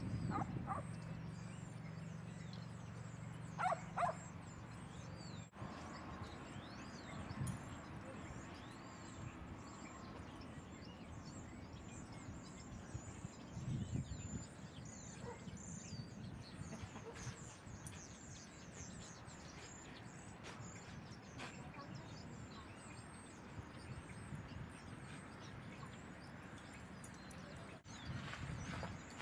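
Outdoor ambience with dogs playing: a short dog bark about four seconds in and another near fourteen seconds, with faint bird chirps throughout.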